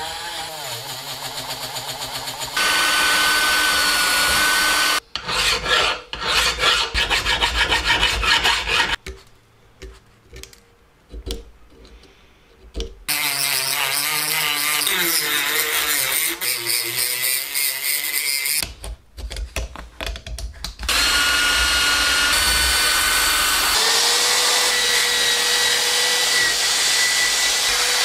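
Cordless drill and rotary tool running with wire brushes and grinding bits against rusty cast iron, in a run of short clips. Each clip has a steady motor whine at its own pitch over the rasp of the bit on the metal, and the sound drops to a quieter stretch about a third of the way in.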